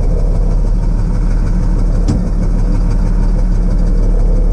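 1984 Mack R600's straight-piped 237 inline-six diesel idling steadily, heard from inside the cab. A brief click about two seconds in.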